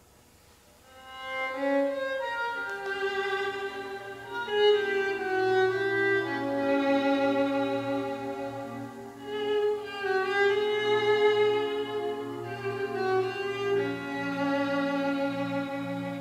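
Recorded solo violin music played back over loudspeakers driven by a pair of Western Electric 142A valve amplifiers. The violin enters about a second in and plays a slow, sustained melody over a held low accompaniment.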